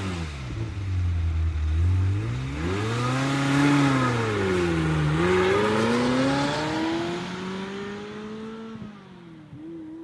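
Ferrari F355 GTB's 3.5-litre V8 running just after start-up: it drops to a low idle, is revved up and back down once, then climbs slowly again before settling back to a steady idle near the end.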